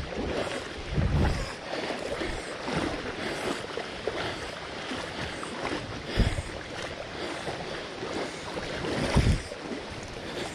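Water rushing and sloshing around the legs of someone wading across a shallow river, over the steady flow of the current. Three louder low thumps stand out, about a second in, around six seconds and just after nine seconds.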